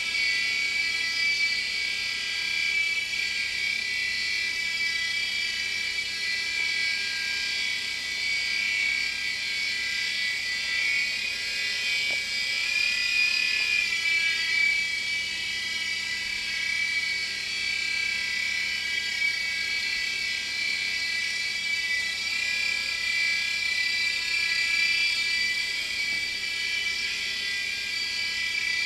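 Toy helicopter's small electric motor and rotor whining steadily at a high pitch, its pitch wavering briefly about halfway through.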